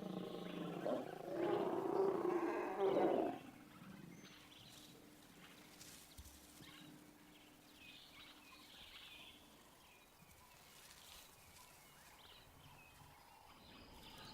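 Lions growling during mating, loud for about the first three seconds and then breaking off, leaving quiet bush background.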